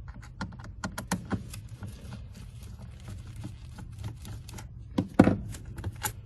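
Scattered irregular clicks and knocks of hand tools working on the back-seat mounting bolts, with one louder thump about five seconds in.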